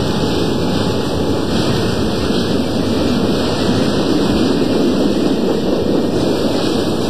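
HO scale model freight train rolling past close by: a steady rumble of the cars' wheels running on the track.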